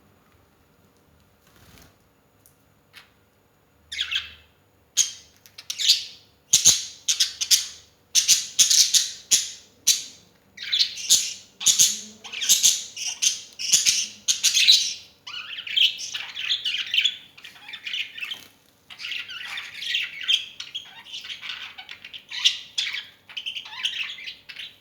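Pet birds calling: after a few quiet seconds, a rapid series of loud, shrill squawks and chirps sets in, then runs on as continuous high chatter.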